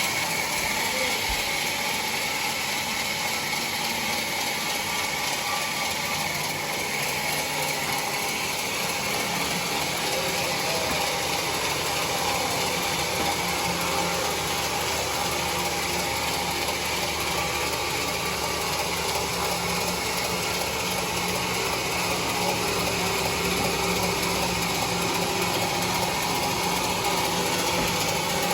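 Homemade band sawmill running steadily, its blade cutting lengthwise through a large trembesi (rain tree) log in one long, unbroken pass, with a steady whine from the machine over the rasp of the cut.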